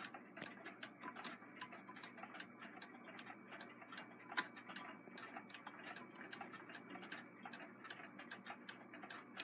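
Singer 66 lock-stitch sewing machine turned slowly by hand at the balance wheel: faint, irregular clicking and ticking from its mechanism, several clicks a second, with one louder click about four seconds in.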